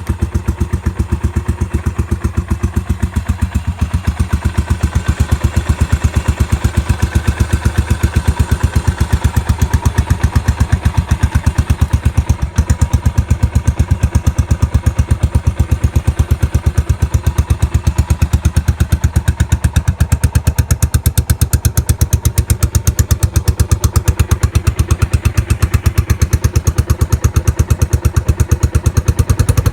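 Yamaha SR400's air-cooled single-cylinder engine idling steadily, its firing pulses even. It runs cleanly, with no abnormal noises according to the seller.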